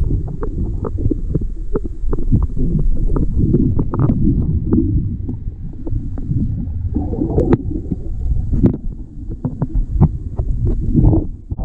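Muffled underwater audio from a camera's waterproof housing as a freediver swims in a spring cave: a low rumble of water rushing past the housing, with many irregular clicks and knocks.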